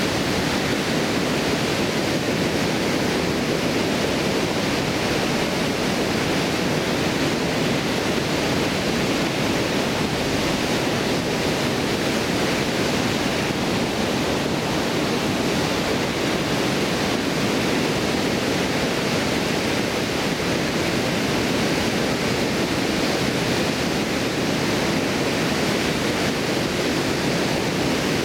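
Water pouring over a stone weir into a swollen, fast-flowing river: a steady, unbroken rush.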